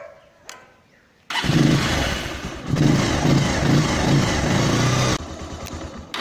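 Motorcycle engine started with the electric starter button. About a second in it cranks and catches, runs loudly with a regular low pulsing for about four seconds, then drops to a lower level and cuts off near the end.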